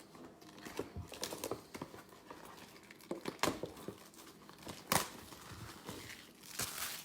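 Plastic wrap and cardboard packaging of a retail blaster box of trading cards crinkling and tearing as the box is unwrapped and opened, in irregular crackles with the loudest rips about five seconds in and near the end.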